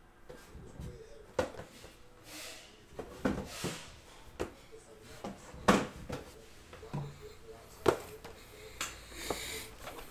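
Irregular knocks and clicks, with a few brief rustles, from objects being handled on a table.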